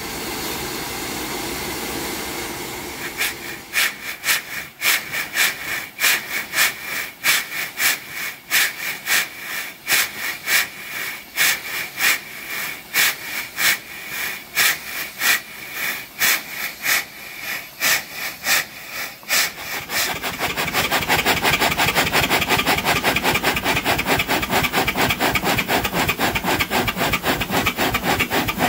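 Ward three-cylinder radial triple-expansion marine steam engine starting on steam: a steady steam hiss, then about 3 s in the engine begins turning over slowly, beating about twice a second. About 20 s in it picks up speed to a rapid even beat, with steam hissing throughout.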